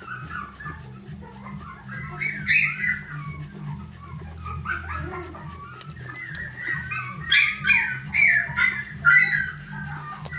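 Young Finnish Lapphund puppies whimpering and squeaking while nursing, many short wavering high calls that come in clusters, loudest about a quarter of the way in and again near the end. A low steady hum runs underneath.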